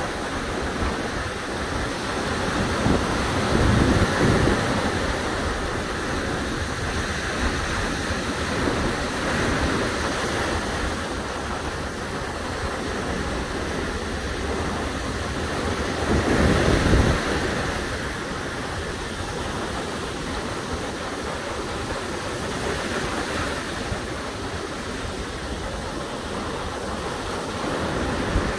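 Small waves breaking and washing up a sandy beach in a steady surf hiss. Wind rumbles on the microphone in two louder gusts, about four seconds in and again around seventeen seconds.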